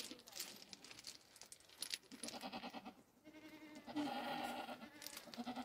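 Livestock bleating in wavering calls, the longest and loudest about four seconds in, with a few light metallic clinks like a chain moving.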